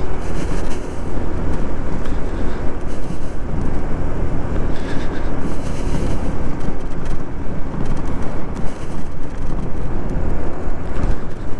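Yamaha Majesty 155 scooter being ridden: its single-cylinder engine running under a steady, loud wind rumble on the microphone.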